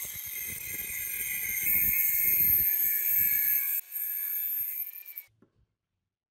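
Abrasive cut-off wheel grinding through a rusty steel sword blade, with the motor's steady high-pitched whine over the grinding. It breaks off briefly just before four seconds in and stops about five seconds in.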